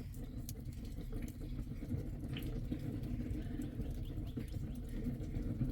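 Rain falling with a steady low rumble and scattered light drips and ticks.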